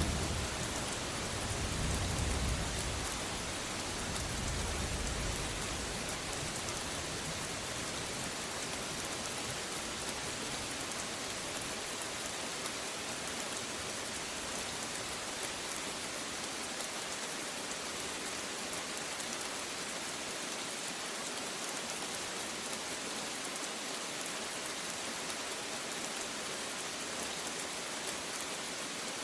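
Steady rain falling, an even hiss of drops. A low rumble of thunder dies away over the first few seconds.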